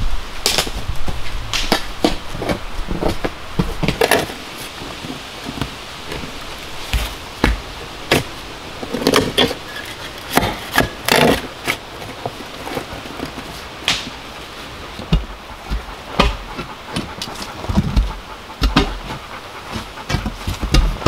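Shovel digging a hole in forest soil beside a post: irregular chops and scrapes of the blade into the dirt, a couple of dozen strokes with uneven gaps.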